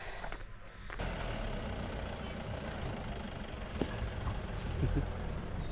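A motor vehicle's engine running steadily, an even low drone that sets in about a second in.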